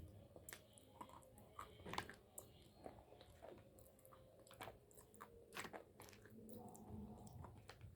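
Soft, close-miked crunching and chewing of small chunks of Hyderabadi white clay (edible chalk), with irregular crisp crunches, the loudest about two seconds in.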